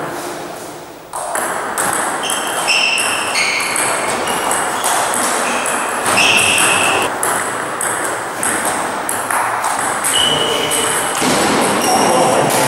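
Table tennis ball clicking rapidly and repeatedly off bats and table during rallies, some hits with a short high ring, over a steady background noise of the hall.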